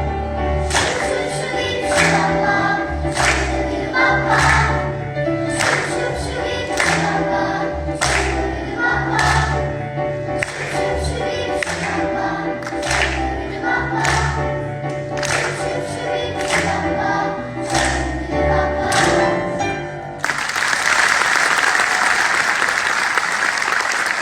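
Children's choir singing over an accompaniment with a steady beat and a bass line, the music ending about 20 seconds in, when the audience breaks into loud applause.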